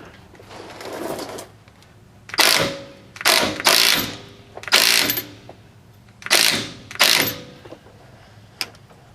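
Wrench or ratchet working the loosened nut off a rusted sway bar end link: about seven short rasping strokes with a faint metallic ring, mostly in pairs, and a small click near the end.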